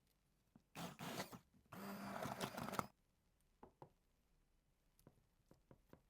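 Food-preparation handling sounds: two short rustling, scraping bursts about a second in, then a few light clicks and taps.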